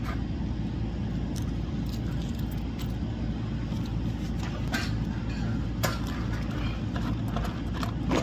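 A steady low mechanical rumble, like an engine running, with scattered light clicks and knocks.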